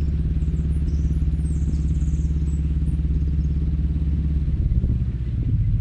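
Narrowboat's diesel engine running steadily under way, a low, evenly pulsing note, which changes about five seconds in.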